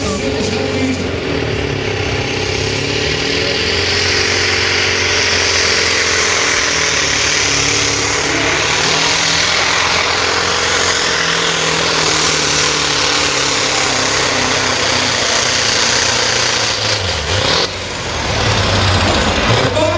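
Scania 142 supersport pulling truck's diesel engine running flat out under load as it drags the weight sled, a loud steady engine note with a harsh hiss on top. Near the end the sound dips briefly, then picks up again.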